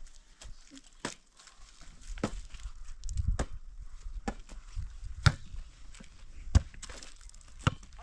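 Hands striking a volleyball back and forth in a two-person rally: a series of sharp slaps, roughly one a second.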